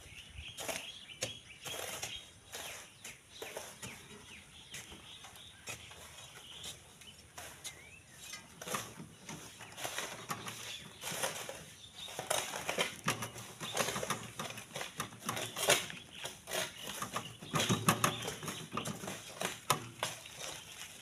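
Irregular scraping, knocks and clinks of hand tools working sand and gravel: iron bars prying sand down a sand cliff, and tools scraping in loose sand and stones. It gets busier about a third of the way in.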